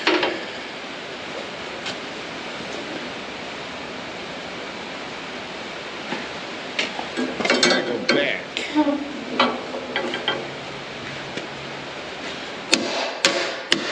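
Hand tools working on steel plow parts: a steady hiss, then irregular metallic clicks and knocks from about halfway through, and a few sharp strikes near the end.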